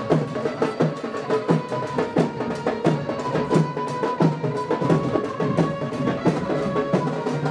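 Music with a quick, steady drum beat under held melody notes.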